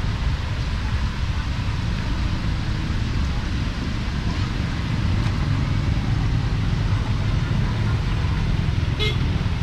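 Street traffic noise: a steady rumble of passing vehicles, with a brief higher-pitched sound near the end.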